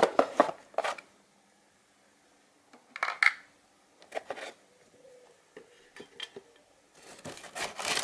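Coiled rubber power cable and cardboard box being handled: scattered short knocks and rustles, then a longer scraping rustle of cardboard near the end.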